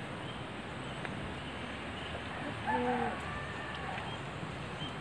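Steady outdoor background hiss with short, faint, high chirps here and there. A short pitched call rises above it a little under three seconds in.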